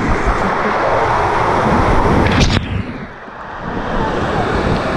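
Water rushing and splashing around an inflatable raft sliding down a water-slide chute, with a deep rumble on the wet action-camera microphone; it dips briefly about three seconds in.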